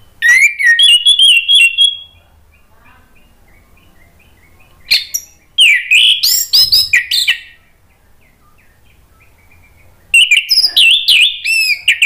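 Orange-headed thrush (anis merah) singing in three loud bursts of rich, varied whistled phrases, one at the start, one in the middle and one near the end, with faint short notes in the pauses between.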